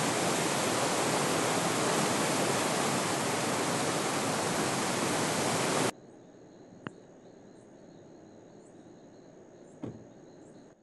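Swollen floodwater river rushing loudly over rapids, a dense, even wash of water noise that cuts off abruptly about six seconds in. After it comes only a faint hiss with a thin high tone, one sharp click and a soft knock near the end.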